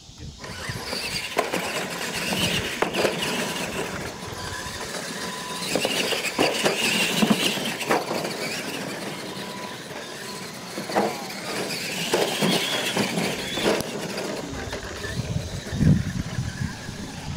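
Radio-controlled monster trucks racing on a dirt track: their motors and gears whine, rising and falling in pitch several times, with scattered knocks and a few low thumps as they run over the ramps and land.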